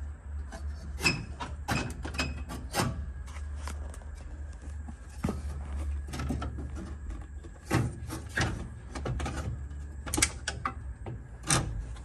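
Irregular clicks, knocks and rattles as a Valiant Charger's instrument cluster is pulled and wiggled by hand out of the dash, over a steady low hum.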